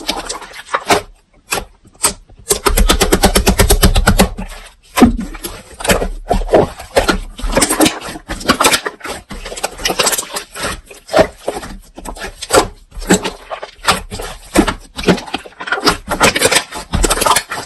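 Slime being pressed and squished by hand, giving crackling pops and clicks, with a fast run of pops for about two seconds near the start.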